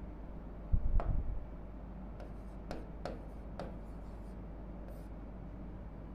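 Pen writing on an interactive display board: a series of short sharp taps and ticks as the strokes are made, with a low thump about a second in, over a steady low hum.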